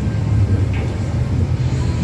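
Passenger train heard from inside the carriage: a steady low rumble as it runs along the track.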